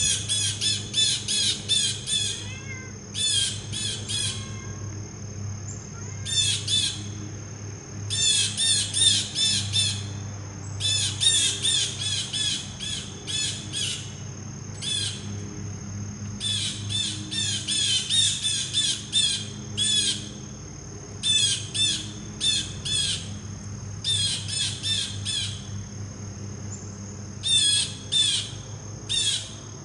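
Blue jay calling in repeated bursts of rapid, high notes, each burst a second or two long with short pauses between, and a steady high tone underneath.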